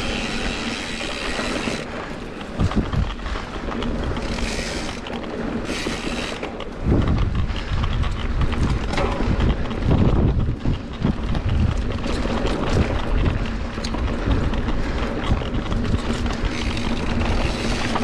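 Wind buffeting the microphone in an irregular, gusty low rumble that grows stronger about seven seconds in, over a faint steady hum.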